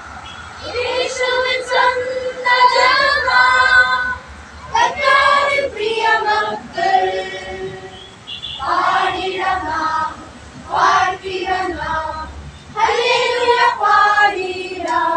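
A group of children singing together, led by a woman's voice, in phrases of a second or two broken by short pauses.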